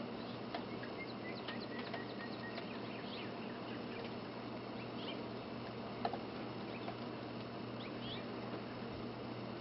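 Outdoor ambience of steady snowfall: a soft, even hiss under a faint steady low hum. Many faint, short high ticks and chirps are scattered through it, with one slightly sharper tick about six seconds in.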